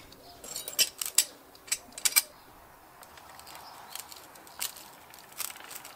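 Sharp clicks and clacks of hard parts on a cordless hammer drill as a stiff part is worked and twisted into position by hand, about half a dozen separate clicks.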